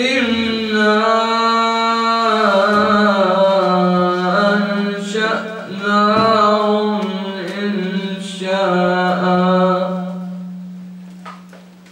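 A young male voice chanting Quran recitation (tajweed) into a microphone in one long, drawn-out melodic phrase, the note held with ornamented turns in pitch, fading away near the end.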